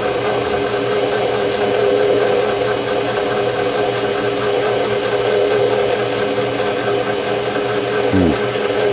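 Mini lathe running steadily with a constant motor and gear whine while a carbide insert turns a 1018 steel bar. Near the end a brief tone slides down in pitch.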